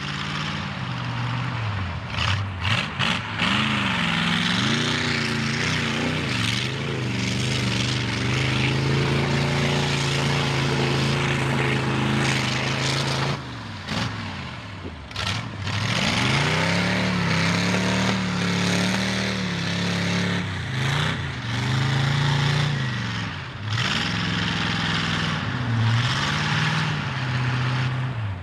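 Ford 460 big-block V8 with open headers, revving hard under load in a mud truck. The revs rise and sag again and again, dropping away most deeply about fourteen seconds in before climbing back up.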